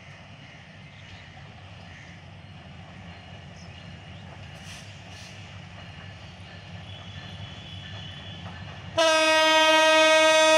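A GT38AC diesel-electric locomotive approaching with a low rumble that slowly grows louder. About nine seconds in it sounds its horn loudly in one steady blast.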